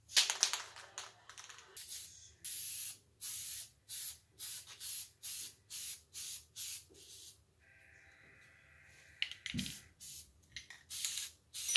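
Aerosol spray paint can spraying in short hissing bursts, about two a second, with a pause about two-thirds of the way through before a few more bursts near the end.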